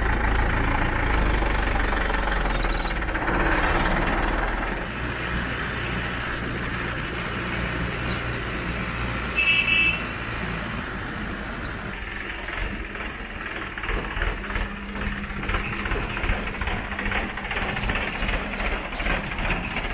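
Diesel farm tractor engine running as the tractor drives along a road, with a short horn beep about ten seconds in.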